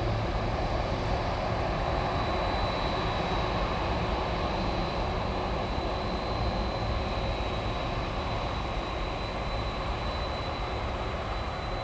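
Boeing 747-400 freighter's jet engines running at taxi power: a steady rumble with a thin, high whine over it.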